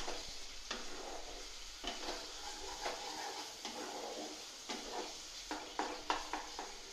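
Wooden spatula stirring and scraping a thick spice paste in a kadai, the paste sizzling as it fries down, with irregular knocks of the spatula against the pan that come more often in the second half.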